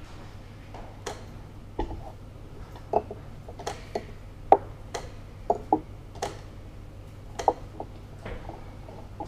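Wooden chess pieces clacking down on a wooden board and presses of an analog chess clock's buttons during fast play: a dozen or so sharp, irregular clacks, the loudest about four and a half and seven and a half seconds in.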